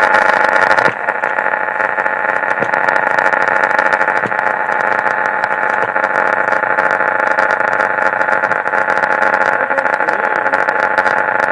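Vintage Pontiac AM car radio giving out a steady loud buzzing static off-station, with a few faint whistles gliding up and down through it.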